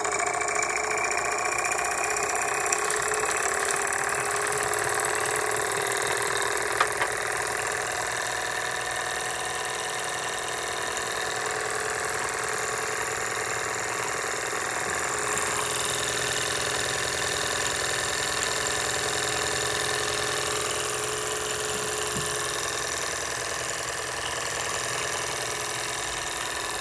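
Jensen Model #75 toy steam engine running steadily, its cylinder exhaust making a fast, even beat over a hiss of steam escaping around the engine. A couple of small clicks in the first seven seconds or so.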